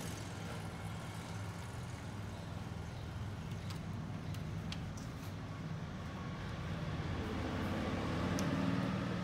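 A steady low mechanical hum, growing somewhat louder near the end, with a few faint ticks.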